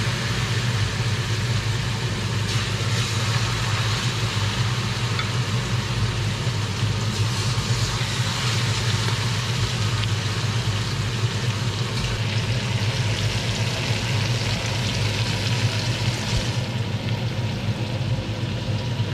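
Salmon fillets frying in melted butter in a steel pan: a steady sizzle, over a steady low hum.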